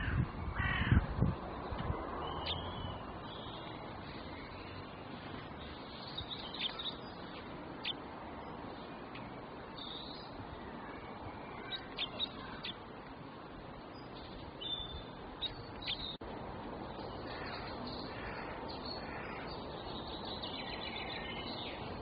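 Birds calling: a loud, harsh call in the first second or so, then scattered short chirps over a steady background hiss. The sound cuts off suddenly at the end.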